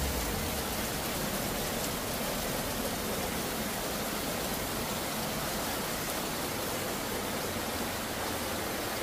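Fast-flowing floodwater rushing past in a steady, even wash of water noise.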